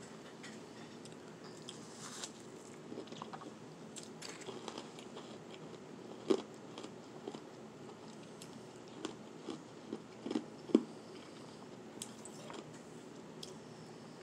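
Powdery shaved ice being bitten and chewed close up, in irregular soft and hard crunches. The sharpest crunches come about six seconds in and twice in quick succession near eleven seconds.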